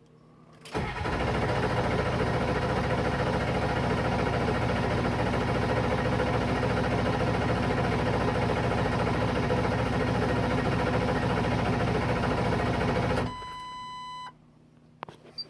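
A 7.3 engine being cranked by its starter for about twelve seconds without firing, a no-start, with a fast steady pulsing. The cranking cuts off suddenly, followed by a short electronic chime tone about a second long.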